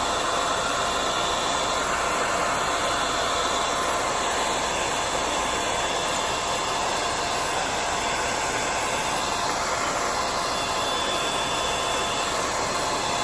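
Handheld LOTTE hair dryer blowing steadily: a constant rush of air with a faint steady motor whine, running hot to evaporate water.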